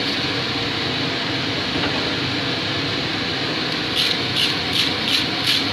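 Steady rushing noise of the forge throughout. From about four seconds in, a heavy-duty wire brush scrubs scale off the hot steel hook on the anvil in quick scratching strokes, about three a second.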